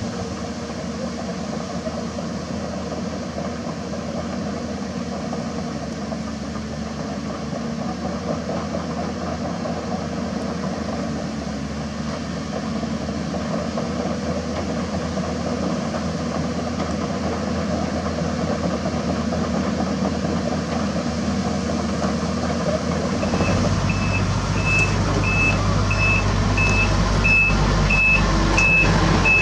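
Hyundai Robex crawler excavator's diesel engine running steadily as the machine travels on its tracks. About 23 seconds in, this gives way to the louder, deeper diesel of an Isuzu Giga FVZ self-loader truck close by, with its reversing alarm beeping about once every 0.7 seconds and a few knocks near the end.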